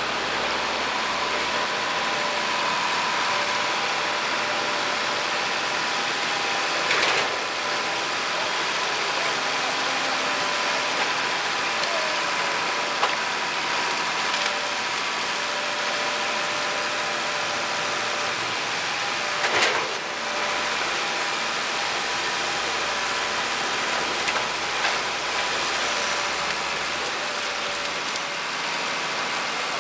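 WSM Model 5472BHCP horizontal grinder running steadily while grinding biomass feedstock, a constant mechanical noise with a steady hum. About four sharp bangs cut through it, the loudest roughly two-thirds of the way in.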